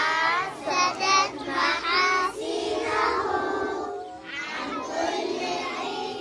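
A group of young children singing together, many high voices at once. The singing is loudest in the first half, dips briefly about four seconds in, then carries on.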